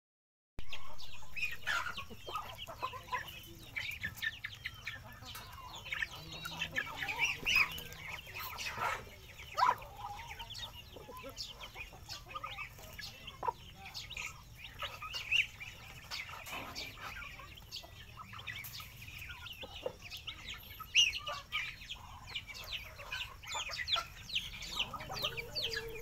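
A flock of chickens and chicks clucking and peeping as they forage, many short calls overlapping, with a few louder calls here and there.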